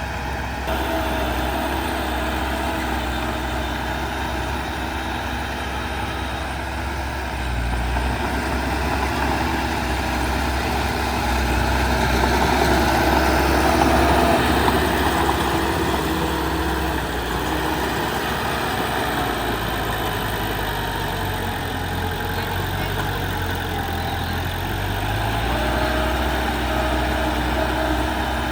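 Heavy earthmoving machinery's diesel engine running steadily, its pitch shifting a few times, and growing louder about halfway through before settling back.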